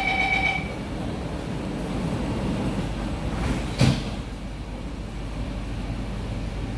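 The door-closing warning tone of an SMRT C151C metro train ends about half a second in. About four seconds in, the sliding doors shut with a single sharp thump. A steady low hum from the carriage runs underneath.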